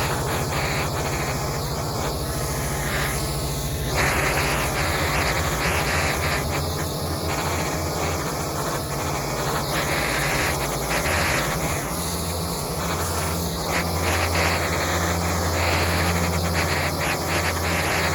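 Gas-engine pressure washer running steadily while its water jet sprays onto concrete, the spray hiss swelling and fading as the wand sweeps. The engine note shifts about twelve seconds in.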